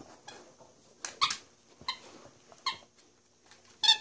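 A dog's short high-pitched yips, four of them about a second apart.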